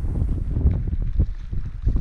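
Wind buffeting the microphone in a steady low rumble, with a few soft knocks through it.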